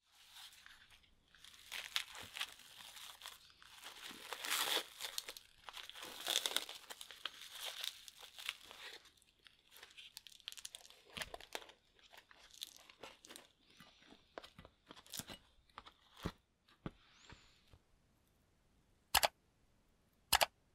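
Crinkling and rustling of a candy tray and sugar-coated jelly candies being handled and tipped into a bowl, with scattered small taps and clicks. There are two sharp clicks near the end.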